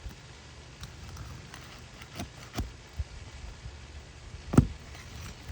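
A few scattered knocks and taps, with one sharp, much louder knock about four and a half seconds in.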